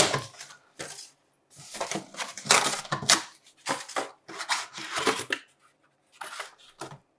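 Corrugated cardboard packaging inserts being torn and pulled off a boxed Dutch oven: irregular crackling and scraping in short bursts, with brief pauses.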